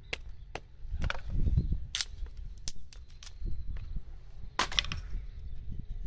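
A small hatchet chopping into a thin wooden board to split off kindling: sharp wooden knocks, about two a second at first, then irregular. There is a splintering crackle about a second in, and the loudest few strikes come close together near the end.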